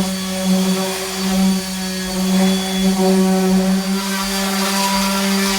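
Electric power sander running at a steady speed, wet sanding the boat's fresh gel coat, with an unchanging motor hum.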